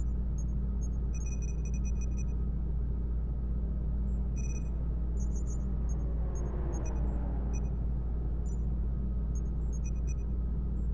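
Sci-fi space-station ambience: a steady deep drone with scattered clusters of short, high electronic beeps and blips. About six seconds in, a sound sweeps downward in pitch.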